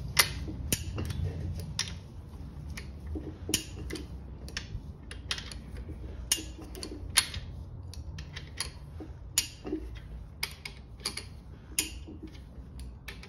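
Torque wrench ratcheting and clicking on the main bearing cap bolts of a Holden grey motor as they are torqued down, in a run of irregular sharp clicks with a few louder snaps among them.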